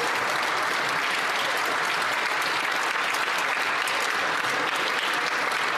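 Members of parliament applauding: steady, dense clapping from a large group.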